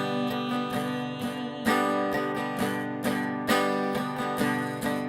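Acoustic guitar strumming chords in a steady rhythm, an instrumental passage of a folk song.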